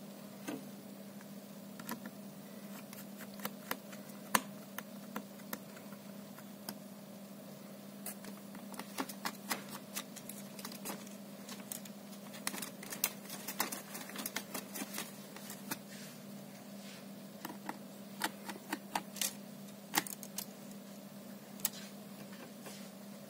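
Scattered light clicks and taps of fingers and a screwdriver handling parts inside an open Dell Precision 5520 laptop chassis, in irregular clusters, over a steady low hum.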